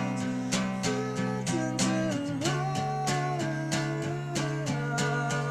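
A recorded song playing: strummed guitar over a steady beat, about two strokes a second, with a melody line but no clear singing in this stretch between sung lines.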